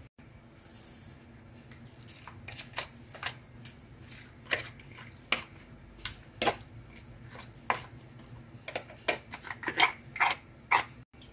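Irregular sharp clicks and cracks of a metal spoon scraping the inside of a raw swimming crab's top shell, with the shell crackling. The clicks come more often toward the end.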